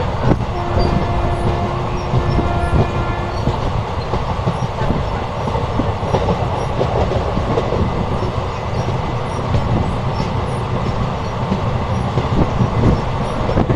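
West Coast Express passenger coach running at speed, heard from its open door: a steady rumble of wheels on rail with clicks over the rail joints.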